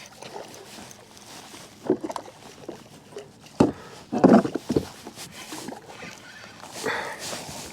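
Irregular splashes and knocks of a hooked speckled trout being fought and brought alongside a fishing kayak, with a sharp click about three and a half seconds in and the loudest splash just after it.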